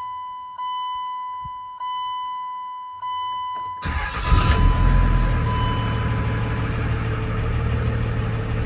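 A dashboard chime repeats about once a second. Then, about four seconds in, the 2000 Ram's 5.9L Cummins turbo-diesel cranks briefly on its new starter and fires on a cold start, settling into a steady diesel idle.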